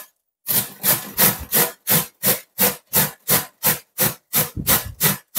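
Cabbage being grated on the fine side of a flat stainless-steel hand grater, in quick even strokes about three a second, starting about half a second in.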